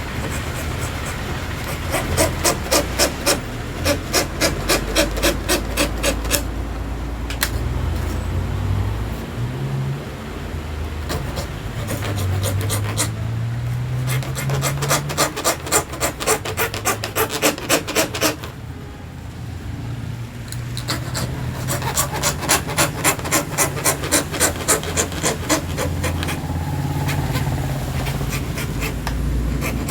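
Plywood hand saw cutting through acrylic sheet by hand, its fast back-and-forth strokes rasping in runs of a few seconds with brief pauses between them.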